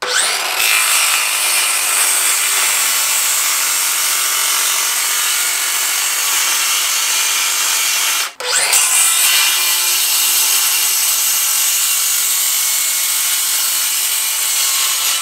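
Cordless circular saw spinning up and cutting through a wooden board. It stops briefly about eight seconds in, then spins up again for a second cut.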